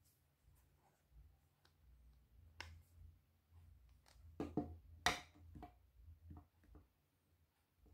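Faint clicks and taps of a hard plastic phone case being handled while its metal ring holder is pulled out as a stand, with a cluster of louder knocks about four and a half to five and a half seconds in.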